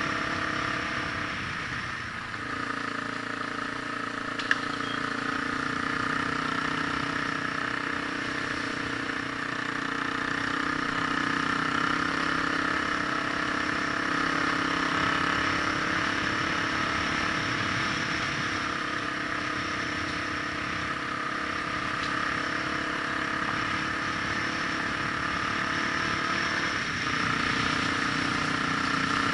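Vehicle engine running steadily while driving, an even drone that shifts in tone about two seconds in and again near the end. One sharp click comes a few seconds in.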